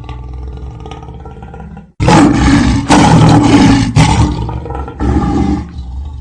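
Mobile ringtone: a sustained low bass drone, broken about two seconds in by a sudden, much louder harsh growling burst lasting about two seconds, and a shorter one near five seconds.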